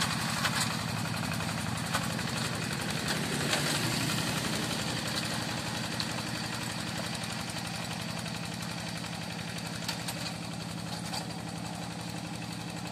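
Single-cylinder diesel engine of a Yanmar Bromo Pro hand tractor running steadily at low revs with an even putter, with a few light knocks over it.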